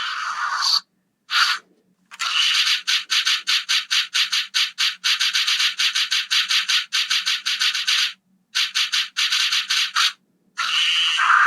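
Electronic sound effect from the Aurachanger toy's speaker: a noisy, rattling run of rapid pulses, about six a second. It stops dead for brief silent gaps at about one second in, near the start of the second half and shortly before the end.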